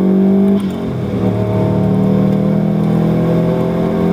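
Car engine heard from inside the cabin, pulling hard with the revs climbing steadily; about half a second in the note drops sharply at a gear change, then climbs again in the next gear.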